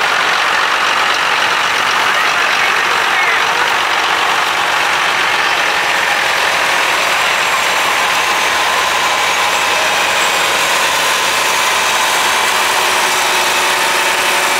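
Antique farm tractor engines running at low parade speed as a red Farmall and then a green John Deere 4000 drive past, a steady unbroken engine noise.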